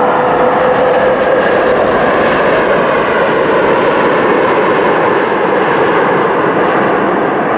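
Twin-engine widebody jet airliner's engines running at high power on the takeoff roll as it passes, a loud steady jet noise with a whine that drops slightly in pitch over the first two seconds.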